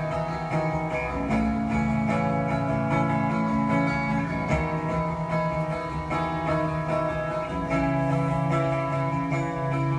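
Background music led by plucked guitar.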